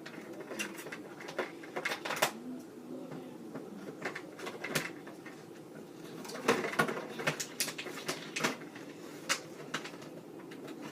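Toy parts and plastic packaging being handled: scattered clicks, taps and crinkles, busiest about six to seven seconds in.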